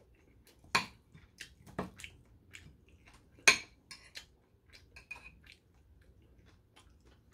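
Metal spoon clinking and tapping against ceramic dishes while eating: scattered light clicks, the loudest about three and a half seconds in.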